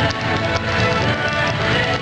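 A step dancer's shoes tapping quickly on a wooden dance board, over live Irish traditional music.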